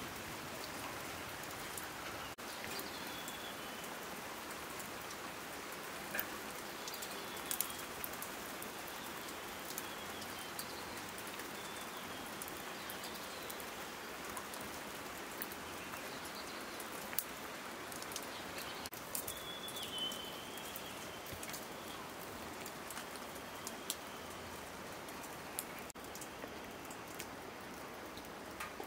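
Wood fire crackling in the firebox of a metal stove: a steady hiss with scattered small pops and snaps.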